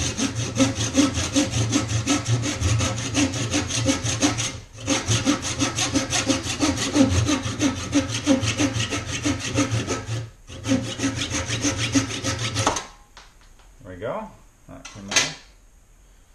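Handsaw cutting through a wooden hatchet handle in quick, steady back-and-forth strokes, trimming the end of the handle flush with the axe head. The sawing breaks off briefly twice and stops about three seconds before the end, followed by a few faint handling knocks.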